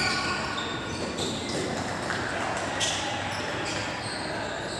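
Football match play: a ball being kicked and bouncing, with a sharp thud about three seconds in, over players' distant calls.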